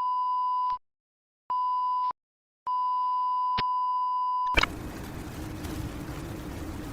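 Three electronic beeps of one steady pitch, two short and a longer third, like a test tone. A click follows, then a steady noisy background with a low hum.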